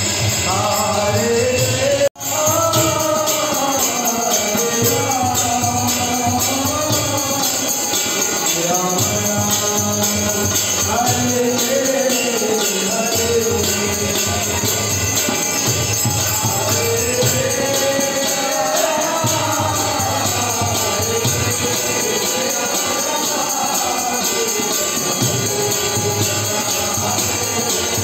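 Devotional kirtan: a singer chanting a melodic line to harmonium, over a steady metallic jingle of hand cymbals. The sound cuts out for a moment about two seconds in.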